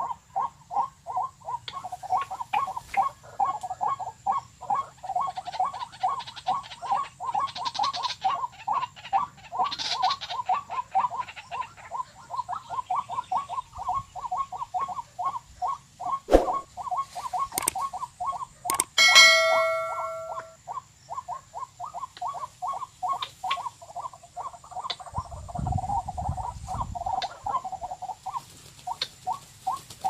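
Rail call played back as a lure from an electronic bird caller: a fast, unbroken train of short notes, about four a second. About nineteen seconds in, a single brief pitched tone sounds over it, and near the end there is a low rumble.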